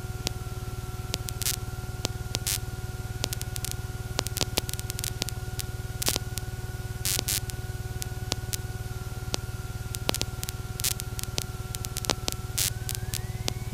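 Electrical hum and static on the cockpit intercom audio line, with no engine heard: a steady thin whine that glides up in pitch near the end, over a low buzz and scattered crackling clicks.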